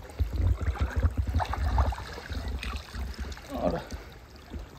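Water sloshing and splashing as people move about chest-deep in shallow backwater, with a low rumble that is loudest in the first two seconds.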